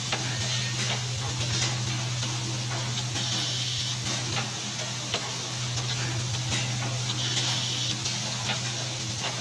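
Automatic saw-blade tooth welding machine running: a steady low hum with light irregular clicks from the mechanism, and a short hiss that comes twice, about four seconds apart.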